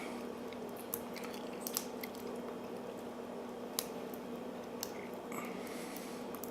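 Lock pick and tension tool working the wafers of a Chicago wafer-lock padlock: faint scratching with a few sharp little clicks scattered through, over a steady low hum.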